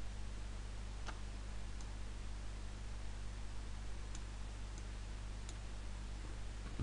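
Steady low electrical hum from the recording setup, with a few faint computer mouse clicks spread through it.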